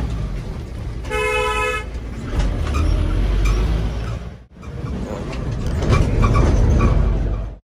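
A vehicle horn sounds once, one steady toot of just under a second, about a second in, over a continuous low rumble with buffeting; the sound drops out briefly midway.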